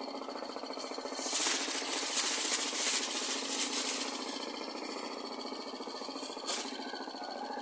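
Electric stand fan running with a homemade PVC-pipe blade, a steady hum underneath. From about a second in, a plastic bag held in its airflow rustles and flutters loudly, stopping with a sharp click about six and a half seconds in.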